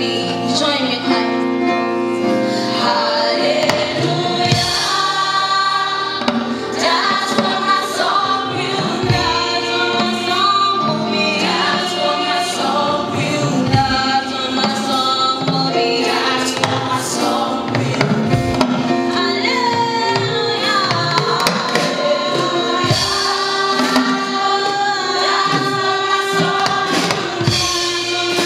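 Women's gospel vocal group singing in harmony with a live band accompanying them.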